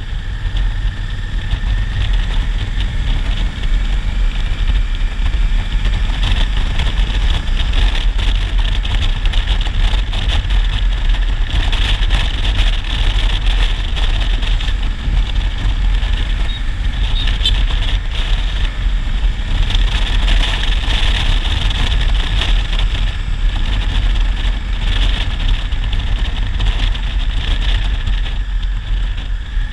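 Honda Africa Twin DCT's 1000 cc parallel-twin engine running steadily while the motorcycle is ridden, under a steady rush of wind and road noise.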